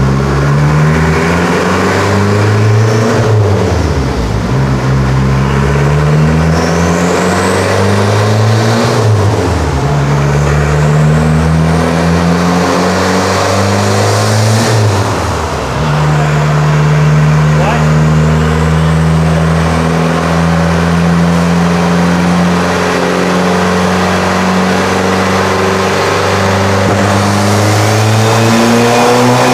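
1988 Ford Thunderbird Turbo Coupe's turbocharged 2.3-litre four-cylinder, fitted with an SVO T3 turbo at 22 psi and a freer exhaust, revving up through the gears on a chassis dyno: three short climbs in pitch, each cut off by a gear change, then one long, slow climb in the final gear. The owner says the engine ran very lean at the top end on this run.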